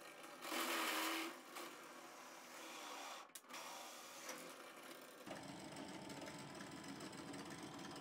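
Bench drill press running while a step drill bit bores through a thin metal mounting bar, louder as the bit cuts about half a second in. The motor runs steadily, with a brief break a little past three seconds.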